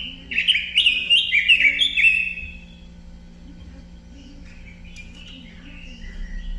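Red-billed leiothrix (Pekin robin) singing: a loud run of quick, falling whistled notes in the first two seconds, then softer phrases near the end.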